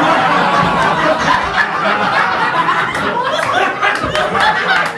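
A live audience laughing, with many voices at once.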